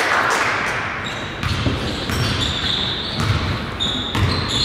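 A basketball being dribbled on a gym floor, thumping about twice a second, with short high squeaks typical of sneakers on the hardwood court.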